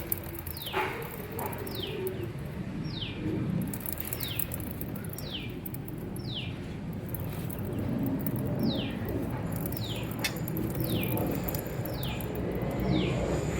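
A bird repeating a short, high, downward-sliding whistle about once a second, at a steady rhythm, over faint low background noise.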